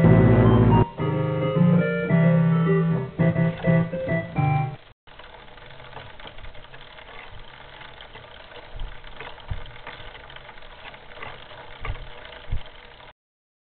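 Background music with keyboard notes for about the first five seconds, which cuts off abruptly; after that, quieter hiss with a few soft knocks, then silence near the end.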